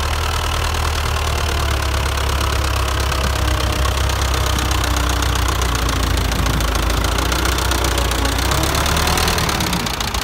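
YuMZ-6 tractor's diesel engine running hard under load as it pulls a mounted plough through heavy, root-matted soil, getting louder as it comes close.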